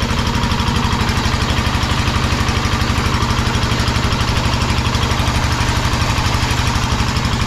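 Stationary engine driving a water pump, running steadily with a rapid, even knock, while a strong stream of water gushes from the pump's outlet pipe into a concrete tank.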